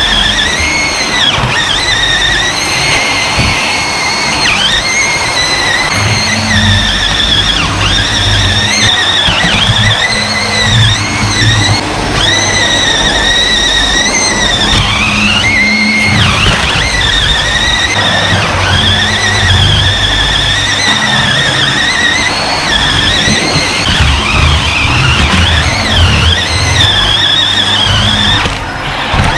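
Vacuum cleaner running continuously, its motor whine dipping and recovering over and over as the nozzle is pushed across the floor.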